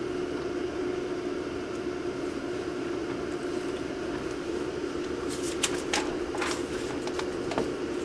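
Steady hum of the hall, with a cluster of sharp knocks and clicks in the second half.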